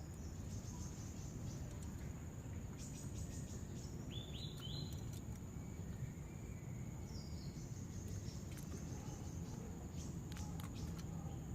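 Steady high-pitched insect drone over a low outdoor background rumble, with a few short bird chirps about halfway through.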